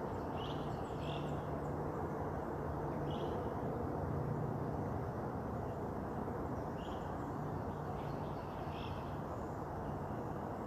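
Birds calling outdoors: short chirps heard about five times, over a steady background rumble with a low hum.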